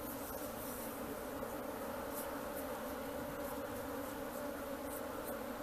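A swarm of Apis honeybees buzzing in a steady, even hum as the bees climb and walk into a hive box.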